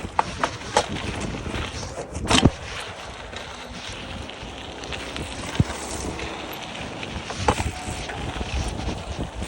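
Mountain bike riding down a dirt trail: a steady rush of tyres and wind, broken by sharp knocks and rattles from bumps. The loudest knock comes about two and a half seconds in.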